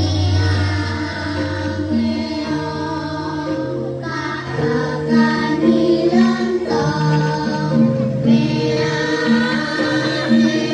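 Song music with singing voices over an instrumental backing.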